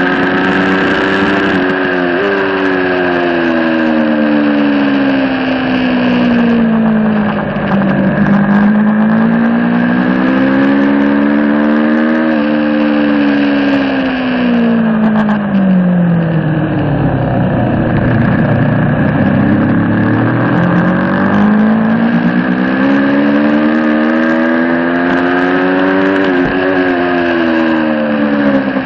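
2022 Aprilia Tuono V4 Factory's V4 engine with Akrapovic slip-on exhaust, ridden at speed on track: it climbs under full throttle and drops away under braking several times, in long sweeps of pitch. Wind rushes over the microphone throughout.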